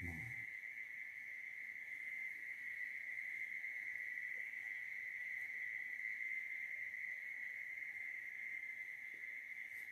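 Insects chirring at night in a steady, unbroken high-pitched drone. A brief low rumble sounds right at the start.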